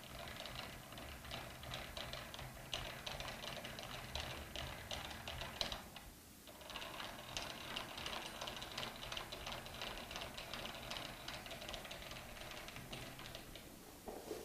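Metal lathe's cross slide being cranked by hand at its handwheel, giving a faint, rapid mechanical clicking as the slide travels on its screw and dovetail. The clicking stops briefly about six seconds in, then resumes.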